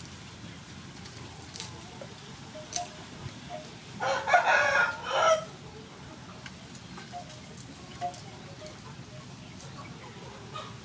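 A rooster crows once, a loud call of about a second and a half starting about four seconds in, with faint hen clucking around it. Light clicks come from garlic cloves being peeled with a small knife.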